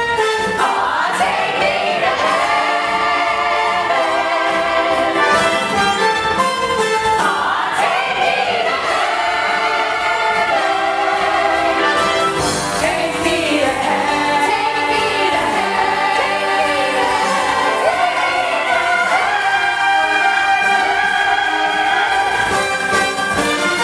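Choir singing an upbeat show tune with instrumental accompaniment.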